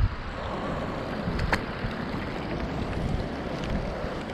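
Steady wind noise on the microphone mixed with rain, with one sharp click about one and a half seconds in.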